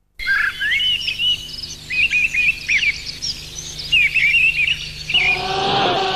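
Birds singing in quick, repeated chirps. About five seconds in, a car's engine note comes in and swells as a Renault Fuego GTA speeds past.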